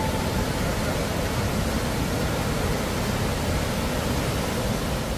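Steady rushing of water, an even, unbroken noise spread from deep to high.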